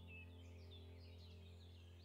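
Near silence, with faint birds chirping and a low steady hum.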